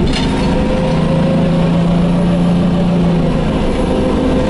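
Detroit Diesel 6V92TA two-stroke V6 diesel of a 1990 MCI Classic bus running, heard from inside the passenger cabin as a steady low drone. The engine's hum holds an even pitch and eases about three seconds in, with a brief hiss near the start.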